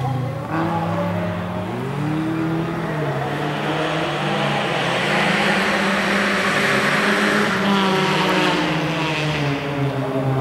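Bilcross race car engines running hard, their pitch climbing and dropping again and again through gear changes, with a rushing noise that swells in the middle and fades near the end.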